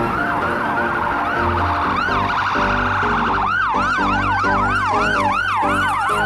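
Ambulance siren wailing up and down in pitch, switching to a quicker yelp of about three sweeps a second about three and a half seconds in.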